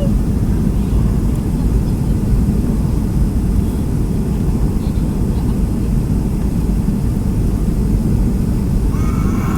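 Steady low roar inside the cabin of a Boeing 757 on final approach: engine and airflow noise heard from a seat in the rear cabin.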